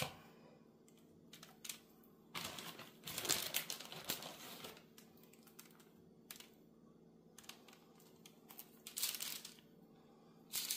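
A gloved hand sprinkling and spreading grated cheese over chilli on a baguette on a parchment-lined baking tray: soft rustling and crinkling in several short spells with quiet gaps between.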